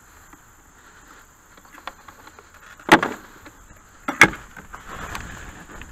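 Two sharp knocks, about a second and a half apart, as the Minn Kota trolling motor's shaft is handled in its mount on the plastic boat. After the second knock a steady low churning sets in as the electric trolling motor starts turning its propeller in the water.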